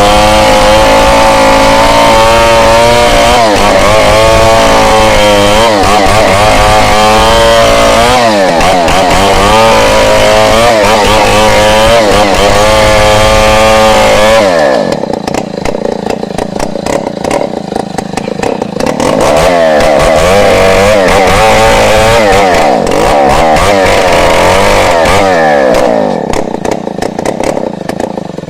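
Chainsaw running at high revs while ripping a log lengthwise, its pitch wavering up and down under load. About halfway through, and again near the end, the engine drops to a lower, quieter run for a few seconds before revving back up.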